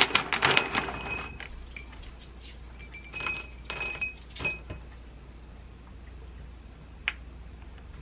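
Dry dog cereal pattering and clinking into a glass dessert bowl as it is poured from a plastic bag, then a few short clusters of kibble tipped in from a container, the glass ringing briefly with each. A single click near the end.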